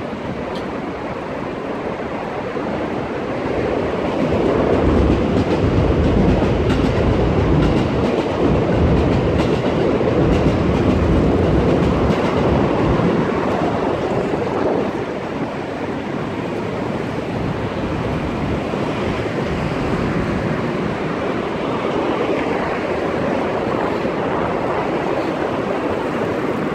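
A train running on an elevated railway viaduct: a steady rumble that swells about four seconds in and eases off after about fifteen seconds.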